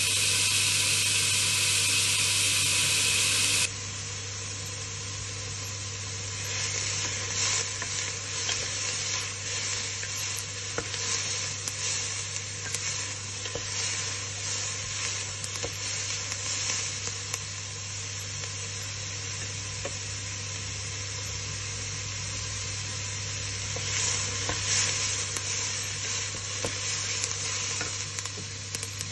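Chopped onion sizzling as it fries in an aluminium pot, stirred with a wooden spoon that clicks and scrapes against the pot. A louder, steady hiss fills the first few seconds and cuts off suddenly.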